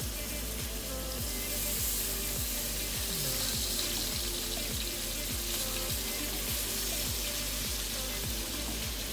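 Pork chops sizzling in hot oil in a frying pan, the hiss growing louder about a second and a half in as more chops go in. Background music with a steady beat plays throughout.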